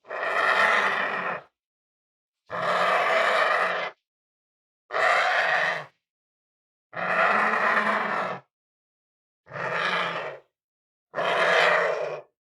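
Six separate monster calls for a giant dove-like kaiju, each about a second long and rough-edged, with dead silence between them.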